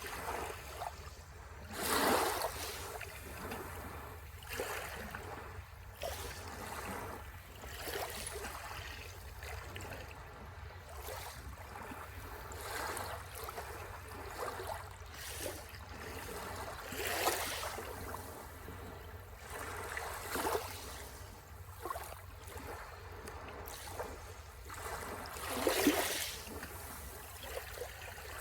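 Sea waves washing in on the shore, breaking in repeated swells every few seconds; the biggest ones come about two seconds in, midway, and near the end.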